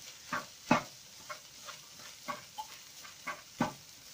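Fried rice being stirred in a frying pan, the utensil knocking against the pan about eight times at an irregular pace over a faint sizzle.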